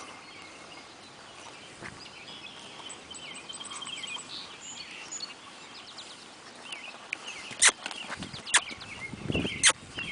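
Birds calling: many short, high chirps and trills. Three sharp clicks stand out in the last few seconds and are the loudest sounds.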